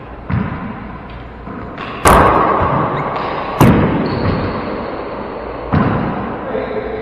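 A rubber handball being bounced on the hardwood floor and struck by gloved hands, smacking off the walls of a four-wall handball court. Sharp slaps that echo in the enclosed court: two soft ones early, the loudest about two seconds in and again a second and a half later, another near the end.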